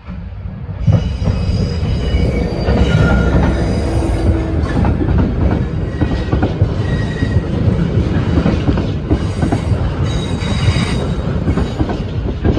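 GB Railfreight Class 66 diesel locomotive, with its two-stroke EMD diesel engine, passing close by. Its freight wagons follow, the wheels squealing against the rails. The sound swells sharply about a second in and stays loud.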